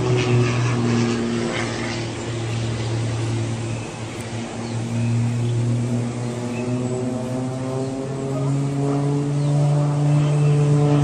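Small propeller aircraft's engine droning steadily as it flies by. The pitch dips slightly about a third of the way in, then rises again and grows louder near the end.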